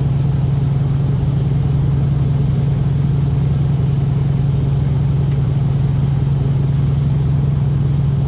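Airboat engine and propeller running steadily at cruising speed: a loud, even drone that holds one pitch throughout.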